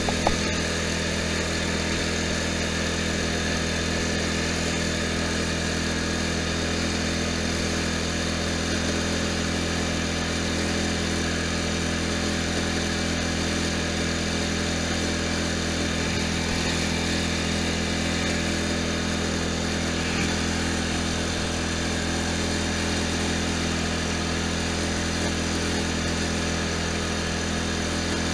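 Poulan Pro riding lawn tractor engine running steadily at an even speed while the tractor drives along.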